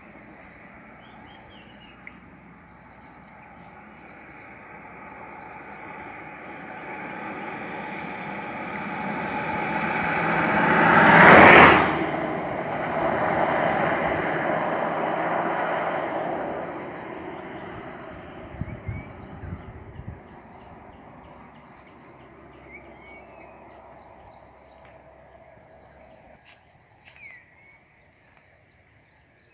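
A car approaches and drives past, its engine and tyre noise swelling to a peak about a third of the way in and then fading away. Under it runs a steady high insect drone, with a few short bird chirps near the end.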